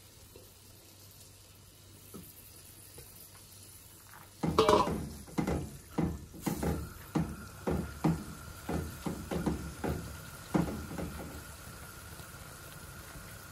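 Raw beef chunks in hot oil in an aluminum caldero being stirred and turned with a silicone spatula: a run of scrapes and wet squelches, about two a second, starting about four seconds in and tapering off near the end, over a faint sizzle.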